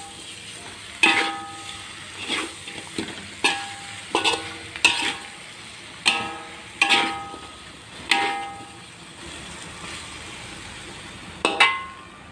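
Metal spatula stirring chicken rendang in a wok, knocking and scraping against the pan a dozen or so times at an irregular pace, each knock ringing briefly. A faint sizzle of the dry spice paste frying over low heat runs underneath.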